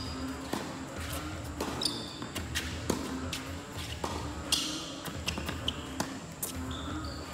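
Tennis rally: a string of sharp pops, a dozen or so at irregular half-second gaps, from racquets striking the ball and the ball bouncing on the hard court.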